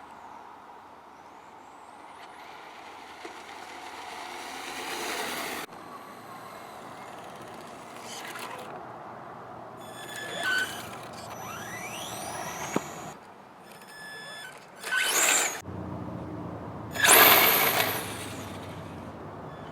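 HPI Sprint 2 Flux RC car's brushless 5600Kv electric motor whining in several short runs cut together, its pitch rising as it accelerates. It passes loudly twice near the end, the second pass the loudest.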